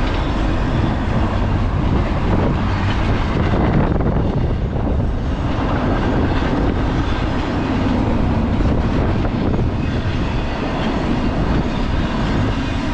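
Double-stack container freight train cars rolling past, a steady loud rumble of steel wheels on the rails.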